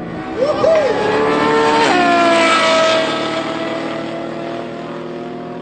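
A Ferrari F12 Berlinetta's V12 and a second car accelerate hard from a standing start in a drag race. The engines rise in pitch, there is a gear change about two seconds in, and the sound fades as the cars pull away.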